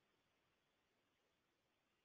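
Near silence: the pause in the narration is nearly digital silence, with only a very faint even hiss.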